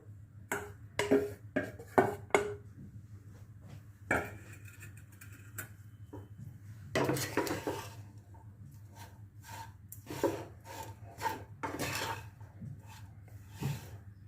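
A spoon knocking and scraping against a cooking pan as cooked rice is stirred into the fried coconut mixture. A quick run of sharp knocks comes in the first few seconds, then longer scrapes.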